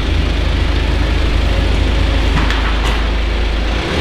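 Steady low mechanical rumble, with a couple of faint clicks a little past the middle.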